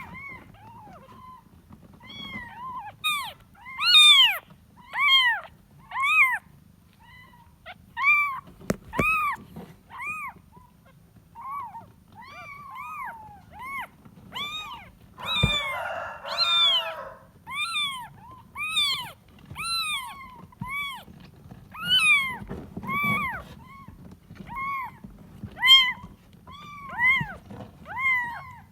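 A kitten meowing over and over, short high-pitched cries rising and falling in pitch about once a second: a kitten calling for its mother. About halfway through there is a knock followed by a short noisy sound.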